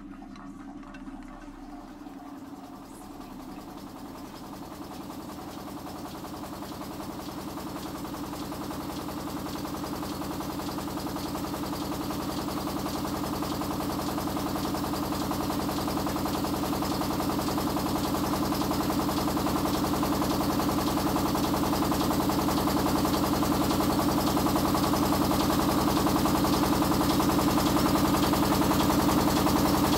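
Motor-driven maize mill running steadily with a hum and grinding noise as corn is fed in, growing gradually louder throughout.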